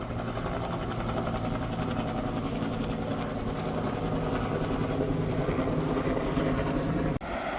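Helicopters flying overhead, a steady droning hum over a rushing-water background. It cuts off abruptly just before the end, leaving only the rush of water.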